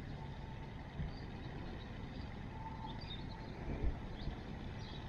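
Steady low outdoor rumble, with a few faint high chirps and a couple of brief low thumps.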